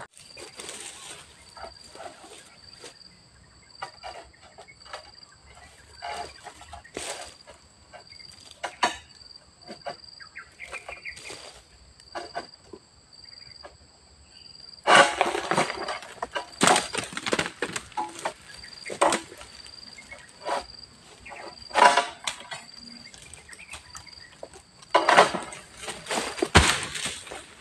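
Insects buzzing steadily at a high pitch in a pulsing rhythm, with several loud rustling crashes of leaves and branches, most of them in the second half.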